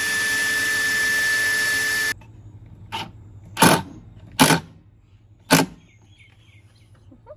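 Makita cordless drill running into the plywood cabinet wall at a steady high whine for about two seconds, then cutting off suddenly. Four sharp knocks follow over the next few seconds.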